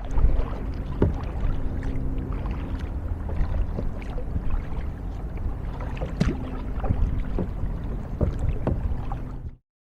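Kayak being paddled: irregular paddle splashes and knocks against the hull over a steady low hum. The sound starts and cuts off abruptly.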